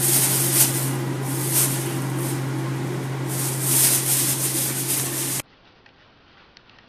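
Thin plastic bag rustling and crinkling as a cat runs and scrambles with it caught on its body, over a steady low hum and hiss. The noise stops abruptly about five seconds in, leaving only faint rustling.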